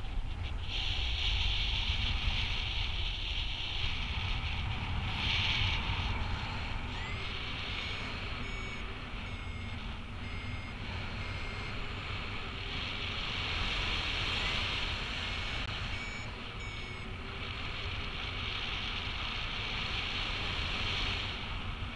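Wind rushing over the microphone in flight under a paraglider, swelling and easing, with a variometer beeping in short repeated tones through the middle: the climb signal of a paraglider rising in a thermal.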